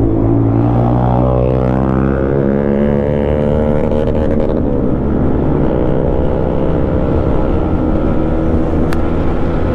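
Yamaha MT-15's 155 cc single-cylinder engine running through an Akrapovic exhaust while riding; its pitch dips and then climbs again about a second and a half in, then holds fairly steady.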